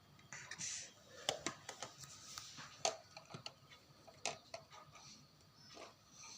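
Light, scattered clicks and knocks of small plastic toy kitchen pieces being handled, about a dozen irregular taps with faint rustling.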